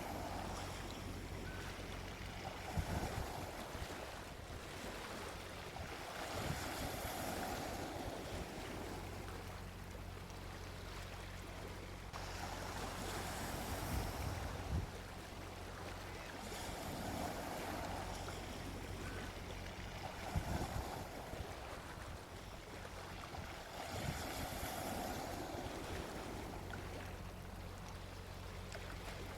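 Small sea waves breaking gently on a beach, the wash of surf swelling and fading every few seconds. A few brief low thumps of wind on the microphone.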